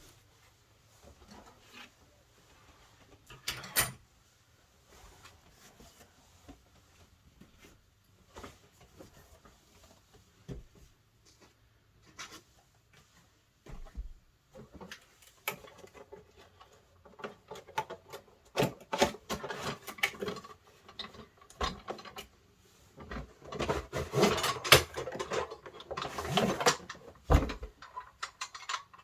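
Books being lifted off a wooden bookshelf and set down: scattered knocks, thumps and sliding, sparse at first and busiest in the last ten seconds.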